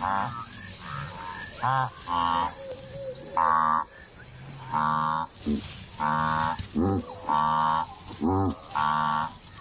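Blue wildebeest herd calling: about a dozen short, moo-like calls from several animals, one after another and sometimes overlapping. A steady pulsing insect trill runs underneath.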